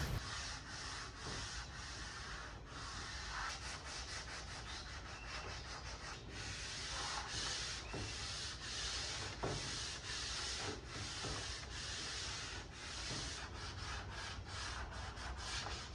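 Sandpaper rubbing over freshly applied wood veneer in repeated back-and-forth strokes, sanding it smooth with 120 to 150 grit.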